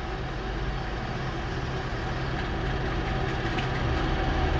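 Off-road vehicle engine running steadily with a low hum, slowly getting louder.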